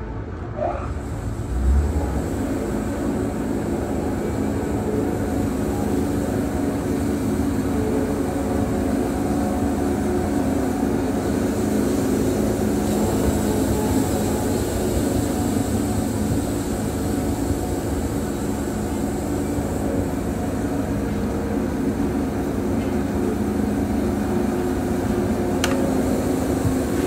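Wood-Mizer portable bandsaw mill running steadily as its saw head travels along a 10-inch log, the band blade cutting a board. There is a brief low thump about two seconds in.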